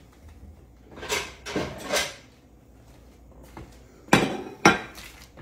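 Items being shifted on a kitchen counter with soft scrapes and rustles, then two sharp clacks about half a second apart near the end as a plate is set down on the stone countertop.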